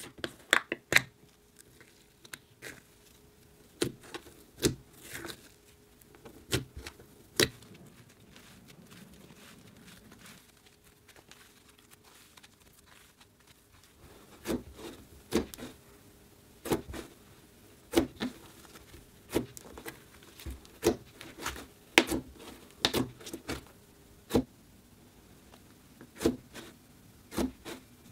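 Pink textured slime pressed and kneaded by fingers, giving irregular sticky clicks and pops. They come more often in the second half, and a plastic jar lid is opened at the start.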